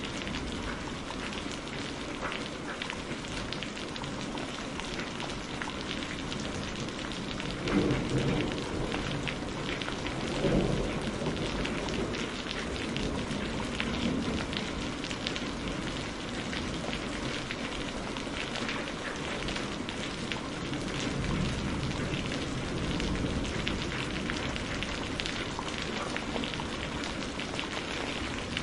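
Steady heavy rain pouring off a roof, with thunder rumbling: two louder peals about eight and ten seconds in, then softer low rumbles later.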